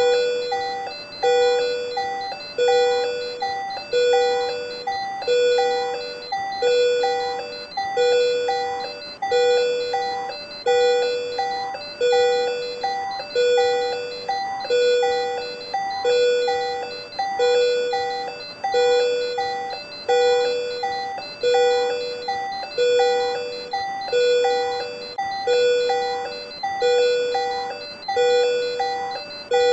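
Patient monitor alarm for supraventricular tachycardia (SVT): a chiming tone that starts sharply and dies away, repeating evenly about every 1.4 seconds.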